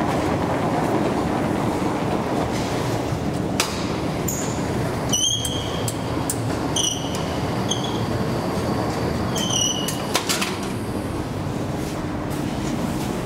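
Steady rumbling noise of a metro station, with several short, high-pitched squeaks between about four and ten seconds in and a few sharp clicks.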